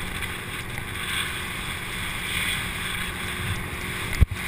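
Water rushing under an inflatable tube towed at speed behind a boat, with wind buffeting the microphone. A single sharp thump comes a little past four seconds in.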